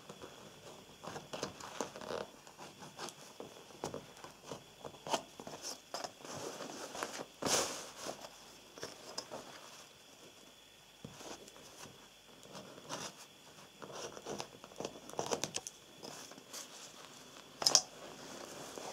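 Hands handling a mink coat's sleeve, lining and a plastic ruler while a line is drawn in pencil: scattered soft rustles, scratches and light taps, with a sharper click about halfway in and another near the end.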